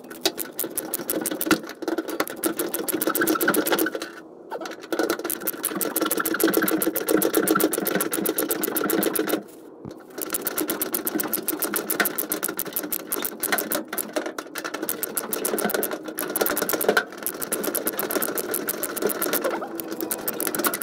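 A tool loosening the second fuel-tank strap bolt under a car: a rapid, even mechanical clatter over a steady hum, in runs of several seconds with short breaks about 4 and 10 seconds in.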